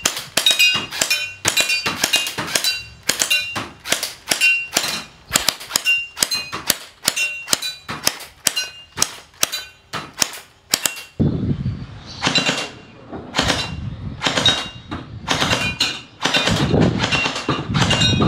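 JOKENEY MP9 electric gel ball blaster firing a long run of shots, about three sharp cracks a second, each followed by a short metallic ring as the gel balls hit the metal targets. About eleven seconds in, the shots come heavier and bunched in quick clusters.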